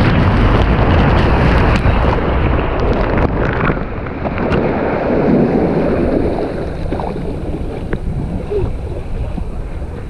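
Water rushing and spraying as a rider on a high-speed body water slide plunges down the chute and into the splash-down, with water and wind buffeting the microphone. The rush is loudest in the first half and eases after about six seconds.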